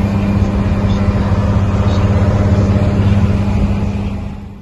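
A loaded truck's diesel engine running steadily at highway speed, heard inside the cab with road and wind noise, a deep even drone; it fades out near the end.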